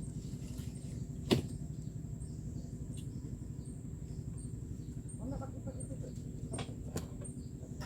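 A few sharp knocks, the loudest about a second in and two smaller ones near the end, over a steady low rumble.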